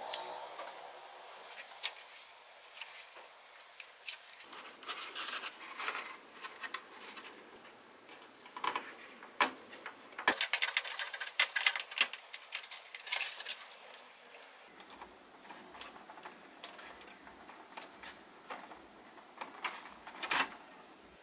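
Bench handling noises from hands building a foam-board model plane: scattered light clicks and taps, with a denser stretch of scratching and scraping in the middle, as a thin wire is worked through the foam and small parts are fitted with a screwdriver.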